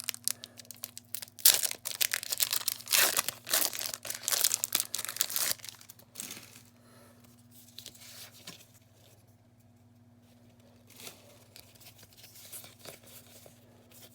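Foil wrapper of a Pokémon card booster pack being torn open and crinkling, loud and busy for the first six seconds or so. After that it settles into faint, sparse rustling as the cards are handled.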